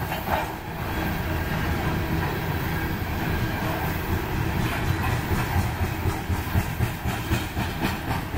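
Loaded-train passage of aluminum coal gondolas rolling by at track level: a steady low rumble of steel wheels on rail, with sharp wheel clacks that come more often in the second half.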